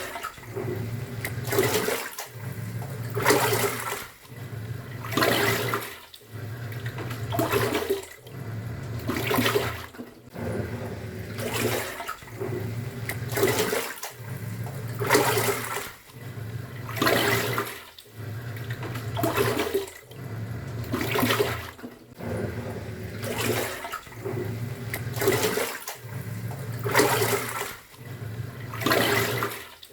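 Top-loading pulsator washing machine agitating a load in water. A motor hum runs for a second or so, then a sloshing swish follows as the pulsator reverses, repeating about every two seconds.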